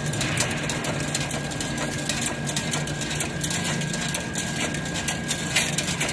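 Automatic chain link fence machine running, feeding and weaving wire into mesh: a steady motor hum with a constant thin whine and rapid clicking.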